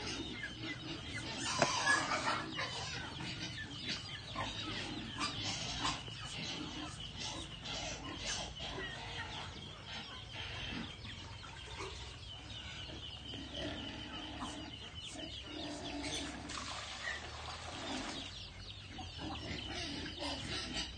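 A flock of ducks and chickens feeding on scattered feed: many quick pecking clicks on the ground mixed with soft clucking calls. A sharp knock stands out about two seconds in.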